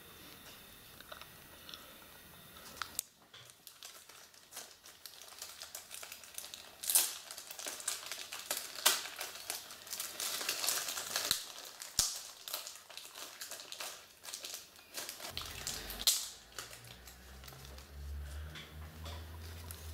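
Thin plastic packaging being crinkled and crumpled as it is handled and opened, with dense crackling and sharp clicks starting about three seconds in and loudest around the middle. A low rumble comes in near the end.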